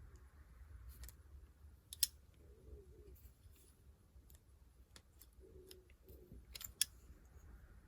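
Faint scattered clicks of steel pliers squeezing a small metal jewelry part closed, with two sharper clicks about two seconds in and near the end.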